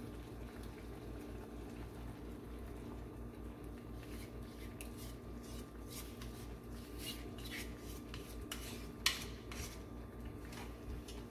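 A spoon scraping thick ground masala paste out of a ceramic bowl into a saucepan: faint scrapes and light clinks of spoon against bowl and pan, with one sharper clink about nine seconds in. A steady low hum runs underneath.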